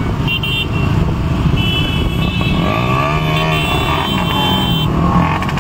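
Many motorcycles riding together at low speed, their engines running in a dense steady rumble, with horns sounding off and on and one engine revving up and back down near the middle.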